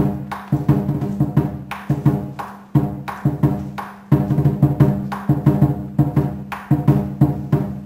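Chinese lion dance drum music: quick, steady drum strokes, about four a second. The beat dies away just before four seconds in, then comes back suddenly at full strength.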